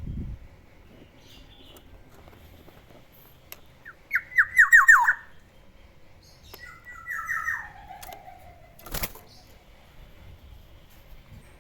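Black-naped oriole calling: a quick run of about six falling notes about four seconds in, then a shorter phrase that ends in a long falling whistle a couple of seconds later. A single sharp click follows soon after.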